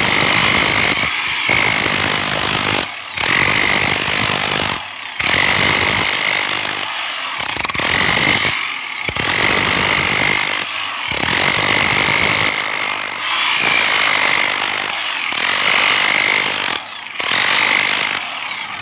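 Handheld electric power tool breaking into masonry for a pipe run, running loudly in bursts of about two seconds with short pauses between, a steady high whine running through the noise.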